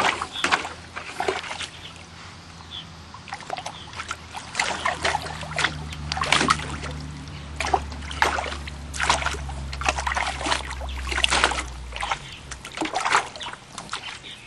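Water in a pool splashing and sloshing in quick, irregular strikes. A low steady hum runs underneath from about five seconds in until about twelve seconds.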